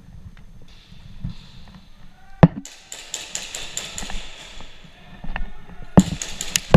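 Airsoft guns firing: a few sharp cracks and quick runs of clicking shots, over rustling and handling noise on the microphone.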